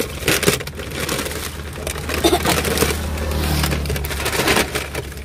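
Plastic snack packets and their carry bag crinkling and crackling as they are rummaged through and handled, over a steady low hum.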